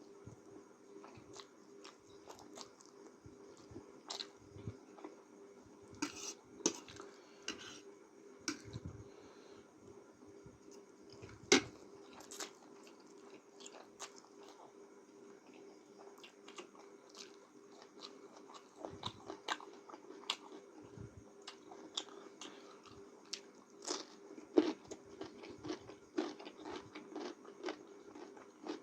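A person chewing and eating instant noodles close to the microphone: irregular wet smacks and small clicks, the loudest a sharp click about eleven seconds in, over a faint steady hum.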